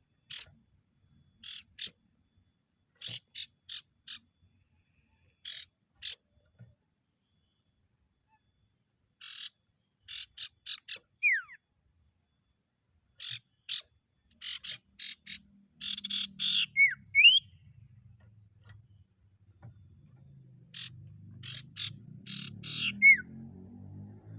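Sirtu, a kind of iora, calling in groups of short rapid chirps with gaps between them, broken by a few sharp downward whistles, about halfway through, around two-thirds in and near the end.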